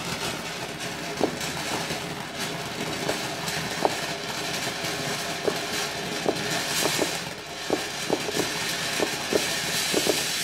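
Garden firework fountain burning with a steady hiss, dotted with irregular small crackles and pops.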